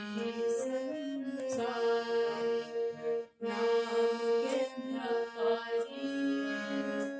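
Harmonium playing the shabad melody alone, its sustained reed tones stepping from note to note, with a brief break a little after three seconds in.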